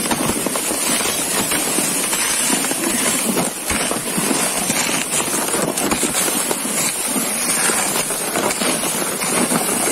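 Footsteps crunching and scuffing over a thin layer of snow on lake ice, a steady scratchy noise without pauses.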